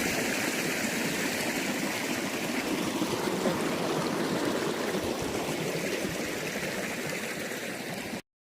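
Steady rushing of a flowing mountain stream, which cuts off suddenly about 8 seconds in.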